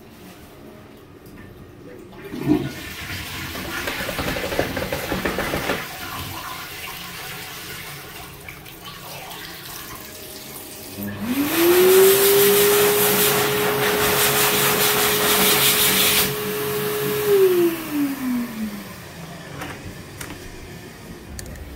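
PHS Airstream hand dryer starting up with a quickly rising whine, blowing air steadily for about five seconds, then cutting out, its motor whine falling away as it spins down. Earlier, a few seconds of running water from the washbasin tap.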